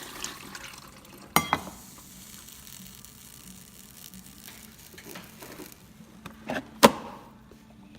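Handling sounds on a drip coffee maker's plastic body: a sharp click about a second and a half in and a louder one near the end, with a few lighter taps before it, over a faint steady hiss.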